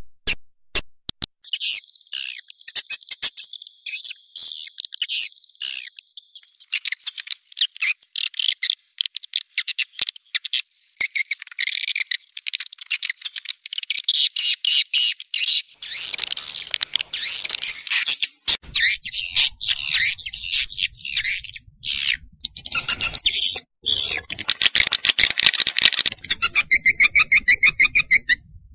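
Swiftlet lure-call recording: fast, dense trains of high twittering chirps of the kind played in swiftlet houses to draw swiftlets in to roost and nest, with a rougher, fuller-sounding stretch a little past the middle.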